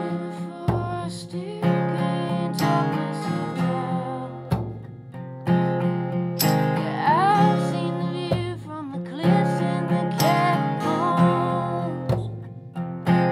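Live acoustic folk song: two acoustic guitars strumming chords, a small drum struck with a stick about once a second, and singing voices carrying the melody.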